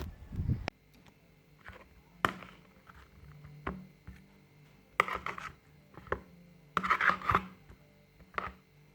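Kitchen utensil sounds while cooking: a few sharp knocks and short bouts of scraping and clatter against cookware, the loudest about five and seven seconds in.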